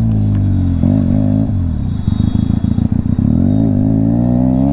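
Benelli TNT 300's parallel-twin engine through an aftermarket exhaust. The revs drop, the throttle is blipped briefly about a second in, and the engine runs low and uneven before revving up steadily over the last second and a half.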